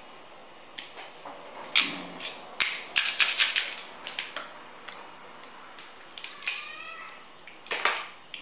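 Cooked crab shell being cracked and snapped apart by hand, a quick run of sharp cracks and clicks as the claws are worked open, with a short falling squeak and a louder crunch near the end.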